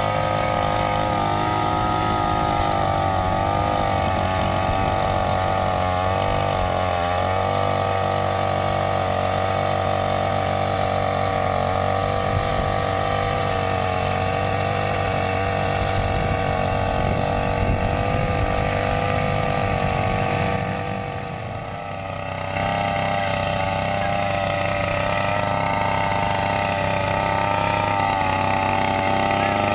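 Small petrol brush cutter engine on a homemade wheeled cultivator, running steadily under power as it drives the tilling head through the soil. The sound drops away briefly about 21 seconds in, then comes back at a slightly different pitch.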